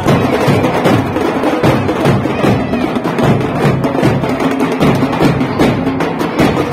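Several dhol drums beaten together by a group of drummers: a dense, steady rhythm of sharp drum hits.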